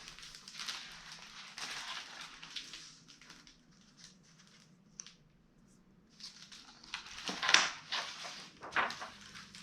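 Paper rustling and crinkling in two spells, with a couple of sharper crackles late on: the pages of a hardcover picture book being handled and turned.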